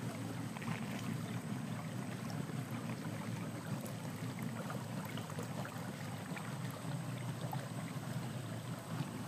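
Small boat moving slowly along a river, its motor giving a steady low rumble, with a thin steady high-pitched tone above it.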